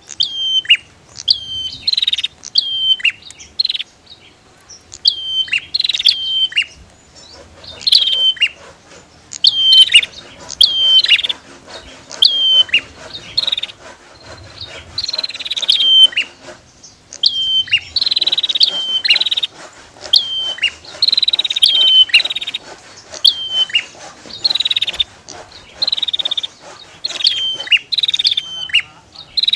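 Prinias (prenjak) calling over and over: sharp, high, falling notes about once a second, with buzzy rasping phrases mixed in.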